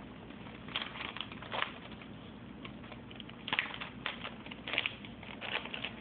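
Irregular crinkling and rustling of plastic packaging: an MRE entree pouch being pushed into its flameless ration heater bag.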